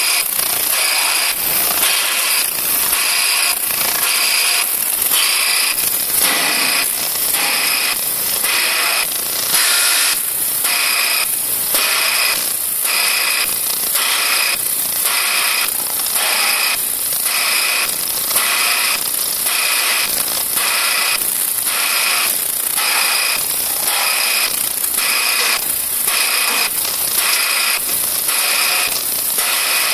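Ultrasonic vibrating sieve machine running: a loud, high hiss with a steady high tone, pulsing at about two beats a second.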